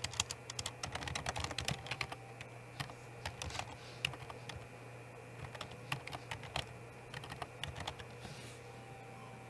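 Typing on a computer keyboard: quick runs of keystrokes at first, then scattered keypresses that stop near the end.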